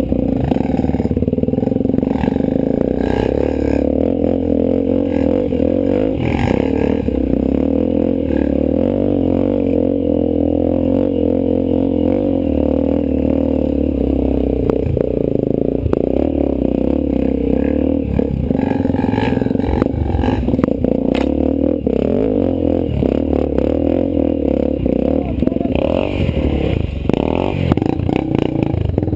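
Off-road motorcycle engine running steadily, its pitch wavering a little with the throttle, with occasional short knocks.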